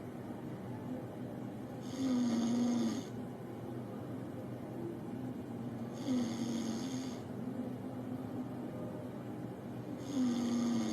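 A man snoring in his sleep: three snores about four seconds apart, each lasting about a second, over a steady low hum.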